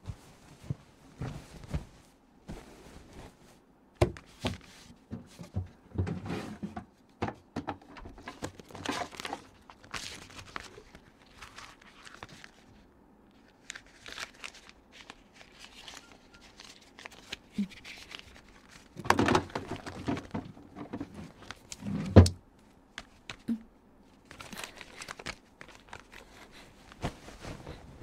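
Bedding being handled: a quilted blanket and pillows rustling and flapping as a bed is made, with scattered light knocks and one louder thump about two-thirds of the way through.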